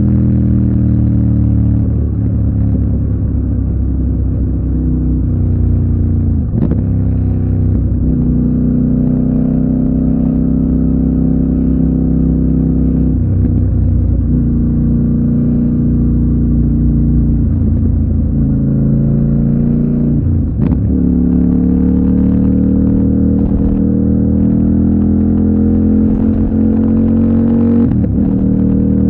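CFMOTO 800NK parallel-twin engine running under way, heard close from the rider's position. Its pitch rises and falls with speed; it drops abruptly with a short break about a quarter of the way in and again about two-thirds in, then climbs steadily as the bike pulls near the end.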